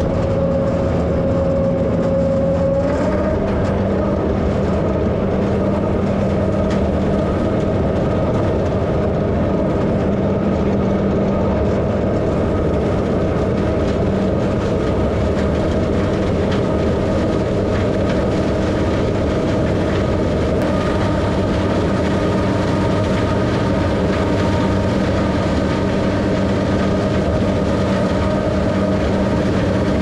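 New Holland 38 flail chopper running under load, pulled by a John Deere 7810 tractor's six-cylinder diesel, blowing chopped corn stalks into the chopper box. The machine noise is steady, and its pitch steps up slightly about three seconds in.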